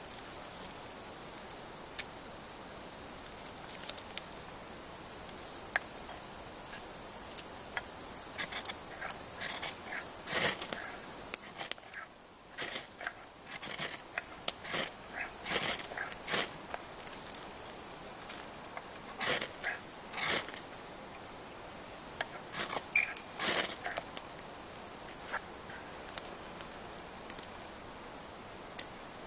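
Ferro rod struck with the spine of a Mora knife: about a dozen short, sharp scraping strikes spread over some fifteen seconds, showering sparks onto scraped birch bark to light it.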